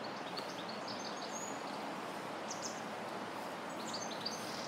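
Steady background hiss of outdoor ambience with small birds chirping: a few short, high chirps start about half a second in and come again near the end.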